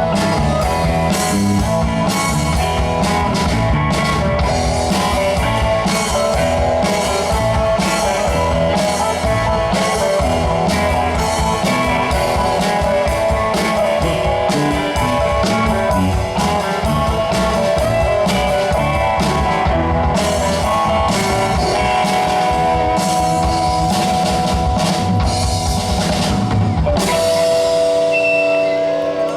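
Live rock band playing an instrumental passage with drum kit and electric guitar. About two seconds before the end the drums stop and sustained chords ring on.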